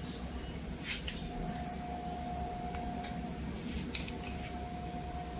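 Steady low hum and hiss from a powered stereo amplifier and speaker on the test bench, with no audio signal, and a faint steady tone that drops out and comes back. Brief rustles and clicks about a second in and again near four seconds in as the RCA input plugs are handled.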